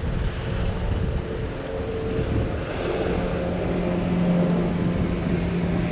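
Wind buffeting the microphone, with a steady low engine drone coming in about halfway through.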